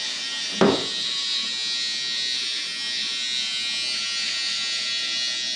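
Electric shaver running with a steady buzz. A single thump breaks in a little over half a second in.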